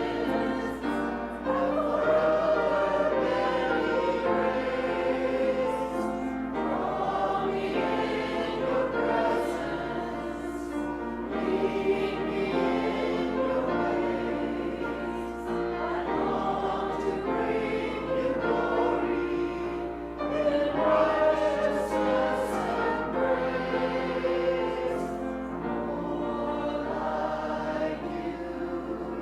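Many voices singing a hymn together, in sustained sung phrases.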